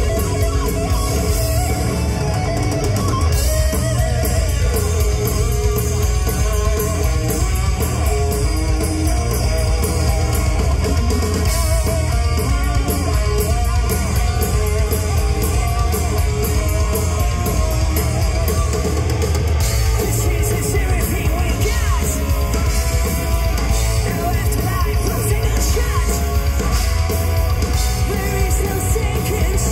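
Heavy metal band playing live: distorted electric guitars, bass guitar and a drum kit, with sung vocals over them.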